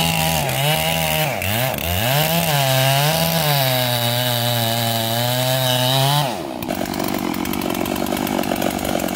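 Two-stroke chainsaw cutting into a large ash trunk at full throttle, its pitch sagging and recovering several times as the chain bogs under load. About six seconds in, the throttle is let off and the saw drops back to idle.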